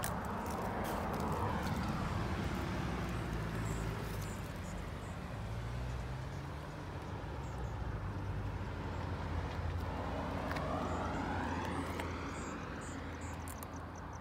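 Road traffic passing: one vehicle goes by just after the start and another approaches and passes about two-thirds of the way through, with its noise swelling and fading over a steady low engine hum.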